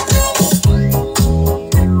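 Music with a steady beat of about two beats a second over a heavy bass line.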